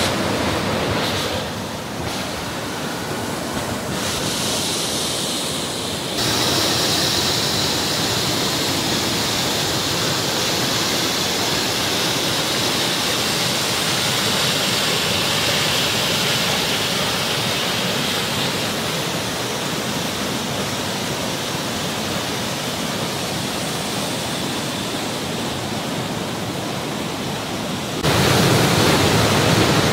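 Mountain stream rushing over boulders in white-water rapids: a steady, loud rush of water. Its loudness and tone shift abruptly several times, most clearly about six seconds in and again near the end.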